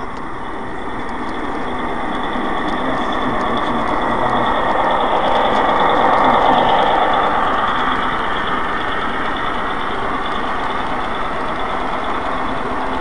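Model train rolling along the layout track, a steady running rumble of motor and wheels that builds as the train comes closer, is loudest about six seconds in as it passes close by, then holds as the cars roll past.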